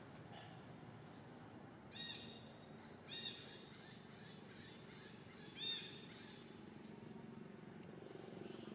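Three short, high-pitched animal calls, each arching up and down in pitch, about a second apart and then a longer gap, over a faint, steady low hum of the forest background.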